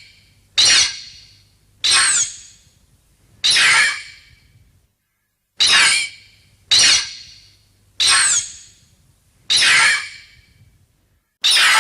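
Mothra's high-pitched screeching cry, a film monster sound effect from the 1960s Showa films, repeated about eight times. Each call starts sharply and fades over about a second, and some have a brief falling squeal at the top.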